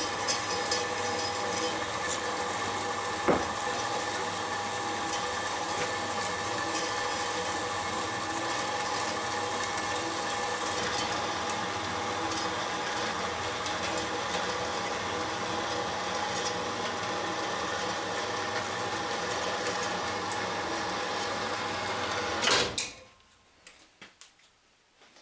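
Cormak horizontal metal-cutting bandsaw running steadily with a constant whine, cutting through aluminium plate. It stops suddenly with a clunk about 22 seconds in, followed by a few small clicks.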